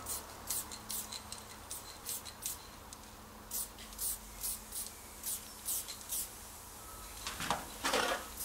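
Aerosol spray-paint can letting out quick, short hisses, about two a second, with a pause around the middle, as fine detail is sprayed. Near the end there is a louder, longer rustling.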